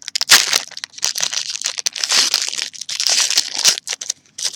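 Plastic wrapper of a Panini trading-card pack crinkling and tearing as it is pulled open by hand with the thumbs. It comes in a run of irregular crackles, with a short pause near the end.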